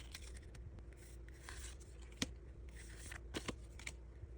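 Trading cards from a freshly opened Pokémon booster pack being slid and flipped one by one in the hands: faint rubbing and scraping of card stock, with a few small ticks, a sharp one about two seconds in.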